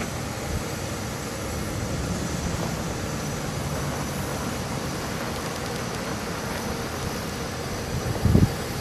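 The 1999 Chevrolet 3500's 7.4-litre gas V8 running steadily as the truck drives slowly across the yard, under a steady hiss of outdoor noise. Two short low thumps come near the end.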